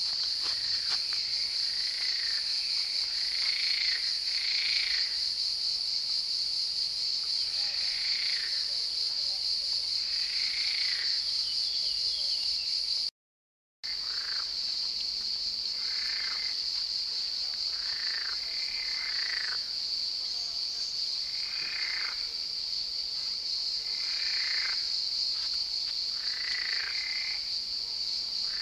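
Frogs croaking, a short call every couple of seconds, over a steady high-pitched drone. The sound cuts out for about half a second near the middle.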